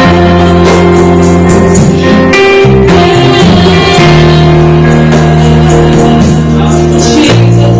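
Loud live worship-band music: drum kit and conga drum playing under sustained low instrumental tones, with a woman singing lead into a microphone.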